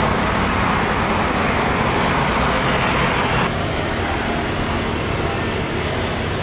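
Boeing 737-800 jet engines (CFM56-7B turbofans) running loud and steady as the airliner rolls out along the runway after landing. The noise drops abruptly about halfway through.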